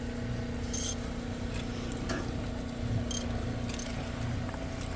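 An engine running steadily at an even pitch, with a few brief light metallic clicks.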